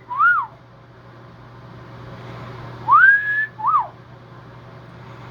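A wolf whistle, a rising note followed by a short rise-and-fall note, twice: the tail of one just at the start and a full one about three seconds in.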